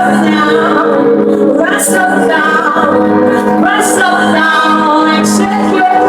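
Worship music with singing, a female voice leading, over sustained instrumental chords and a rhythmic cymbal-like hiss about every two seconds.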